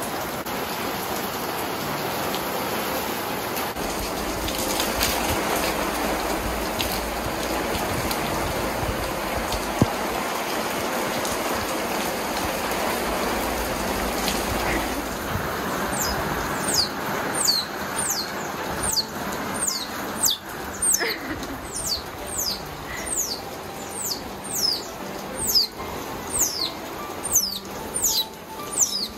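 Steady rush of heavy rain for about the first half. Then a baby Asian small-clawed otter cries, a run of sharp, high squeals, each sliding downward, about one and a half a second. These are the baby's distress cries at its first heavy rain.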